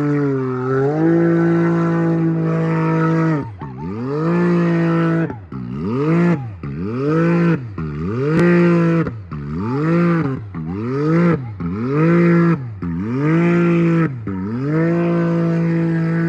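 Can-Am Maverick X3's turbo three-cylinder engine revving hard. From a few seconds in, its pitch repeatedly drops sharply and climbs back, about once a second, as the throttle is cut and reapplied, then it holds steady near the end.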